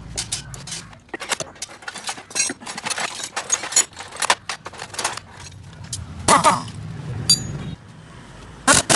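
Metal tools and engine parts clinking and knocking as they are handled, an irregular run of sharp clicks with a louder knock about six seconds in, over a low hum.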